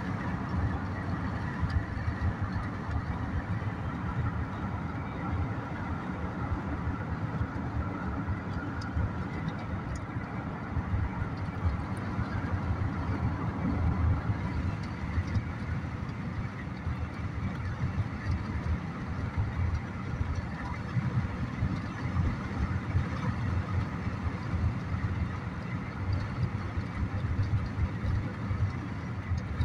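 Steady drone of a car's engine and tyres on the road, heard from inside the moving car.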